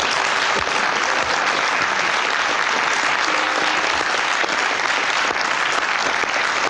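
Studio audience applauding steadily after a correct answer on a game show, a dense, even clatter of many hands clapping.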